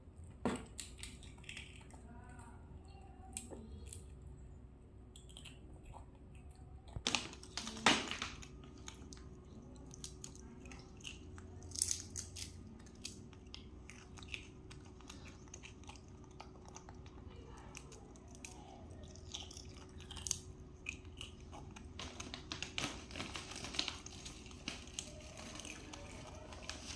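Potato chips crunching as a toddler and a young monkey chew them: scattered short crackles, with a few louder ones about seven to eight seconds in.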